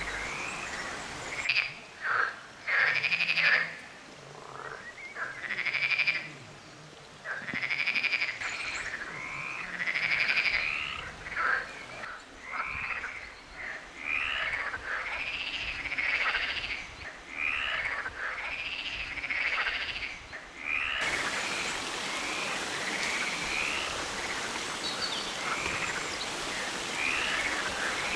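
A chorus of many frogs croaking at a rock pool, with calls overlapping and repeating several times a second, each rising and falling in pitch. About three-quarters of the way through, a steady hiss joins underneath.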